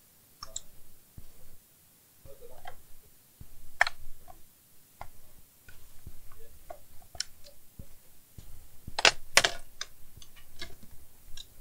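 Small, scattered clicks and taps of an Asus E410M laptop being opened up and handled by hand during disassembly, with two louder sharp clicks close together about nine seconds in.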